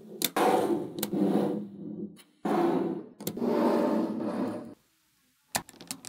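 Small magnetic balls rattling and clicking against one another in two long runs, with sharp single clicks among them. Near the end, after a short pause, come a few quick clicks of balls snapping together.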